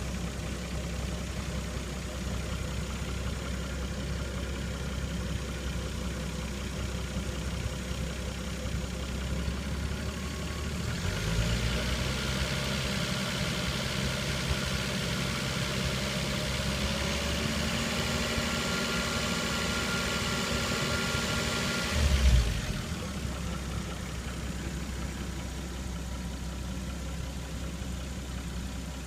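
Toyota 7M-GTE turbocharged inline-six idling while its freshly refilled radiator is burped of trapped air. About a third of the way in the engine steps up to a faster, louder speed with more hiss, holds it, then drops back to idle with a short low thump about two thirds of the way through.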